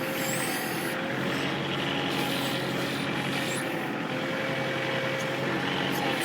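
Kubota L4400 tractor's diesel engine running steadily while driving the BH92 backhoe's hydraulics, with a thin whine that comes and goes.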